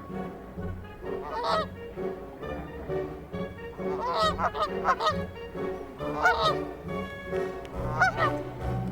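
Canada geese honking: a single honk, then a quick run of several honks, then two more single honks a second or two apart.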